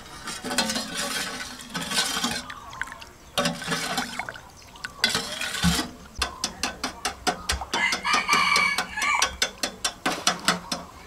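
Metal ladle stirring liquid sauce in a stainless steel pot, with sloshing and scraping, then a fast run of sharp clicks. A rooster crows in the background about eight seconds in.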